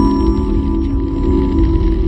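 Logo-reveal music sting: a held low chord with a thin high tone above it, slowly fading.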